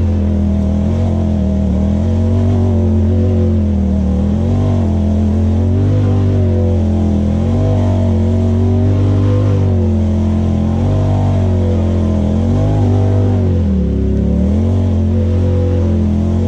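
Side-by-side UTV engine running under load, its pitch rising and falling again and again as the throttle is worked, with a deeper dip near the end.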